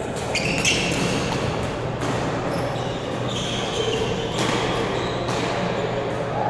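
Badminton rally: several sharp cracks of racket strings hitting the shuttlecock and brief high squeaks of court shoes on the gym floor, over a steady background of noise from other courts.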